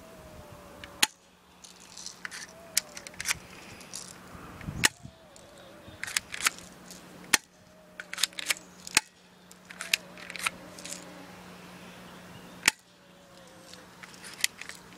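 Colt 45 replica air pistol being fired, about five sharp cracks at uneven intervals of one to four seconds, with lighter clicks and taps in between.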